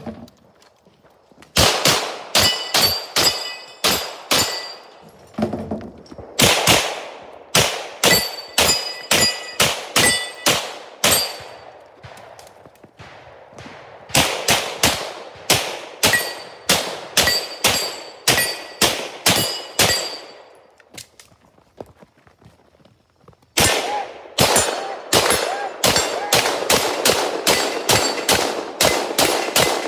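Rapid strings of gunshots, two or three a second, fired in four runs with short pauses between them, many followed by a ringing clang from steel targets being hit.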